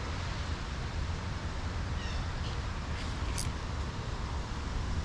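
Steady rush of creek water, with a few faint bird chirps a little past two seconds in.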